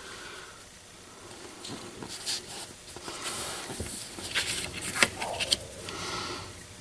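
Paintbrush swishing and rustling across watercolor paper as ink is spread with water, with a short cluster of sharp clicks a little past the middle.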